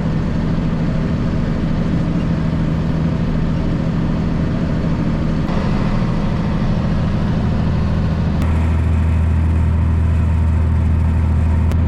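Tractor engine running steadily while pulling a bush hog rotary mower. About eight seconds in, the low engine note shifts and grows louder.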